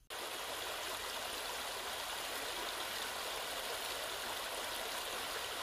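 Small creek running: a steady rush of flowing water that starts abruptly.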